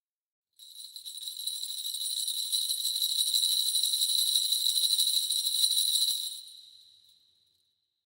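Kagura suzu, a Shinto bell tree of many small gilded metal bells, shaken continuously to give a bright jingling with a steady ring. It starts about half a second in, grows louder over the first few seconds, then dies away over the last two seconds.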